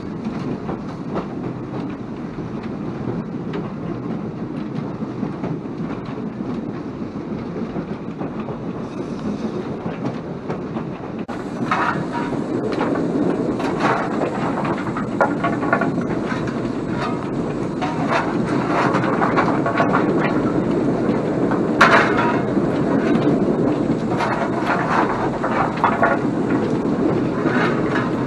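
Footplate noise of a BR Standard 9F 2-10-0 steam locomotive running with a train: a steady rumble and hiss with wheels clicking over the rail joints. From about halfway it grows louder, with sharp clanks and scrapes of a coal shovel as the fireman fires the open firebox, the loudest clank about three-quarters of the way through.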